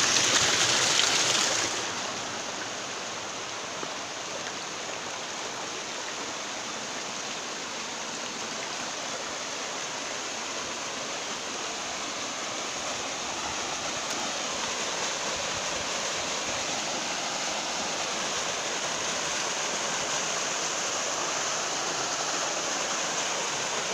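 Rocky stream rushing over and between boulders, loud and close for about the first two seconds, then a steady, softer rush of running water.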